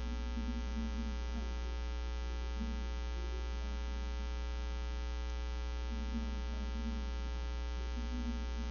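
Steady electrical mains hum on a microphone's recording line: a low buzz with a long stack of overtones, unbroken throughout.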